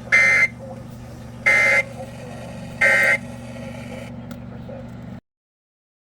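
Emergency Alert System SAME end-of-message data tones: three short, raspy two-tone digital bursts about 1.4 s apart, marking the end of the warning, over a steady low hum. The audio cuts to silence about five seconds in.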